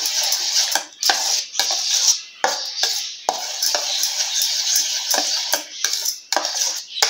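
Steel spoon stirring a thick, wet bread pudding batter of blended bread crumbs, egg, milk and ghee in a stainless steel bowl: a steady wet scraping with small clinks of spoon on steel and a few brief pauses.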